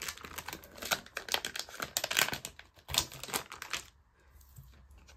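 Clear plastic coin pouch crinkling and pound coins clicking as a coin is put into it, a quick run of small clicks and rustles that stops about four seconds in.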